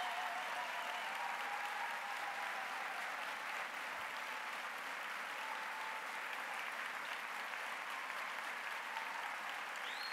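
Large audience applauding steadily, with a few faint voices calling out over the clapping.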